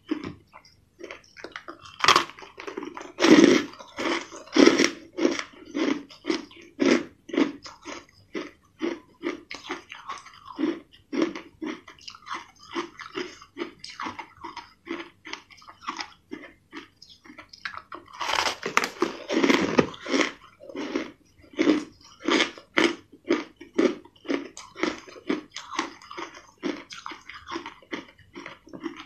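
Purple flavoured crushed ice being bitten and chewed, a steady run of crunches about two to three a second. The loudest bites come about two to five seconds in and again around two-thirds of the way through.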